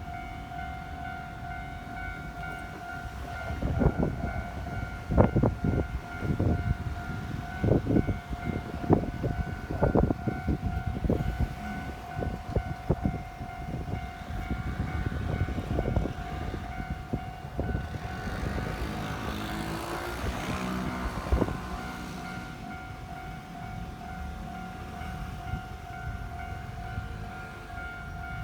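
Level-crossing warning alarm ringing steadily while a Keikyu electric train passes over the crossing. For about twelve seconds its wheels clack loudly over the rail joints, then a whine from the train rises and falls and the train noise fades.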